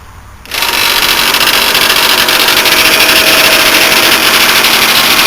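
Crushed TECO window air conditioner starting up about half a second in when plugged in, its rotary compressor and damaged fan motor running loud and harsh with a steady hum through the noise. The unit is struggling with a flattened condenser coil: 'not happy'.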